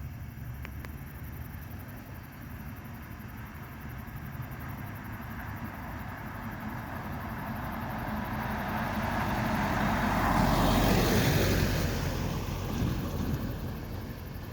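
A car passing by: road and tyre noise swells slowly, peaks past the middle, then fades away.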